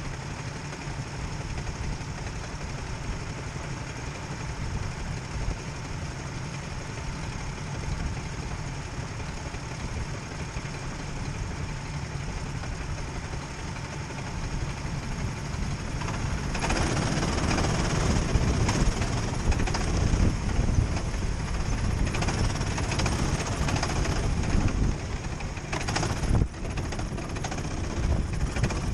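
Sodi RT8 rental kart engines idling in a queue, a steady low running; about 16 seconds in the sound steps up and grows louder as the karts pull away and drive off.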